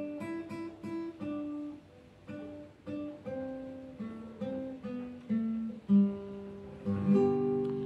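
Classical guitar played solo: a plucked single-note melody, closing with a fuller chord about seven seconds in that is left to ring.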